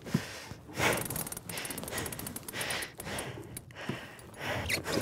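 A man's heavy, labored breathing: a series of short, forceful breaths as he strains at the reel against a heavy fish on the line.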